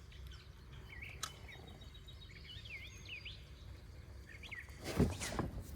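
Small birds chirping in short repeated calls over a low outdoor hum, with a brief loud knock or rustle about five seconds in.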